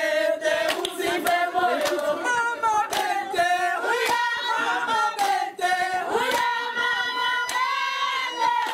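A group of voices singing together, several pitches at once, with hand claps.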